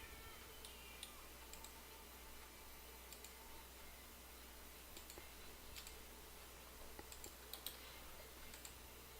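Faint, scattered clicks from computer controls at irregular intervals, more of them near the end, over a low steady hum.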